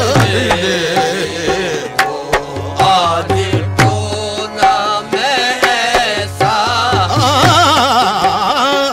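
Qawwali music: a wavering, ornamented melody over a steady low drone, with tabla and sharp percussive strokes keeping the rhythm.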